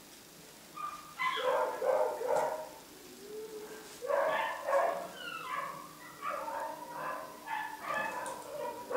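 Beagle puppy yapping and whining in repeated bouts of high, sliding cries, the longest bout running through the second half.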